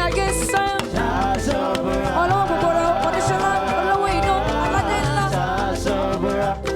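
Upbeat live gospel praise band music: steady bass and drum groove under wavering melodic lines from the band.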